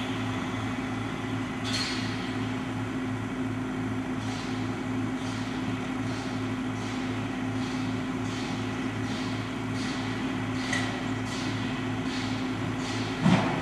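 Wheeled excavator's diesel engine running steadily with a low, regular throb. Faint rhythmic hissing comes from a standing narrow-gauge steam locomotive, and a couple of knocks sound near the end.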